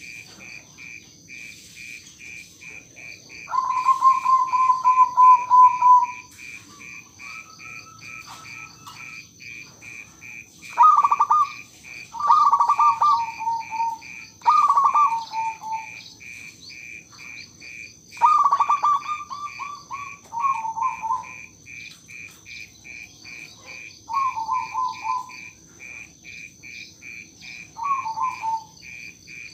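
Zebra dove (perkutut) cooing its staccato song: about seven phrases of quick soft notes that each fall slightly in pitch, the first one long and held. Behind it, insects chirp steadily about three times a second, over a constant high whine.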